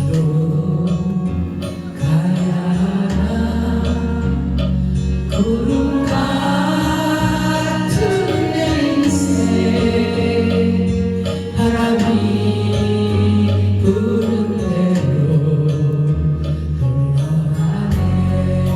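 Korean trot song played on a backing track, with voices singing the melody over it.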